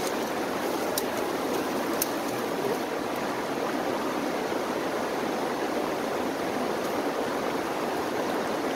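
Shallow rocky stream flowing steadily over stones, with a couple of faint clicks about one and two seconds in.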